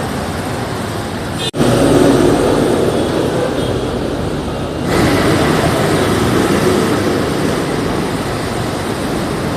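City road traffic: a steady rumble of passing vehicles and tyre noise. The sound drops out for an instant about a second and a half in, and jumps abruptly louder about five seconds in.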